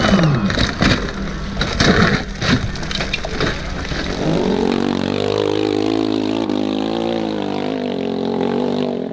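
Dirt bike tumbling down a rocky slope with a series of clattering knocks and crashes, its engine note falling away. From about halfway, a dirt bike engine runs steadily under load as it climbs, its pitch wavering slightly.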